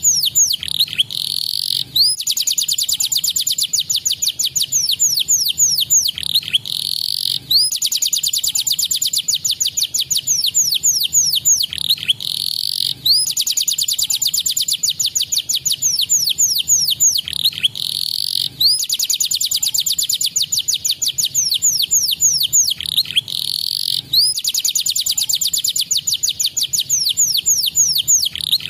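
Canary singing: fast, high-pitched trills of quick downward-sweeping notes, in long phrases broken by a short pause about every five and a half seconds.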